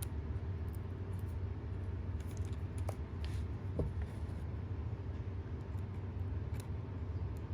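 Scattered light clicks and small metallic ticks of a hand tool working a small screw out of an RC car's wheel hub assembly, over a steady low hum.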